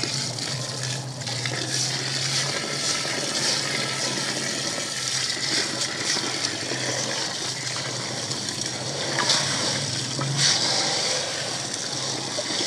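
Water from a hose gushing into an aluminium tub of aquarium gravel while a hand stirs and rubs the stones, rinsing the dirt out of them. A faint steady low hum runs underneath.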